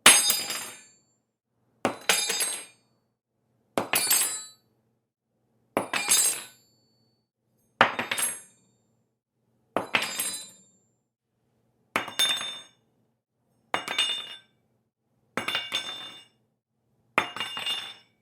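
Metal silverware dropped on a hard floor, ten times at about two-second intervals: each drop a sharp clatter with several quick bounces and a short metallic jangle that dies away within a second.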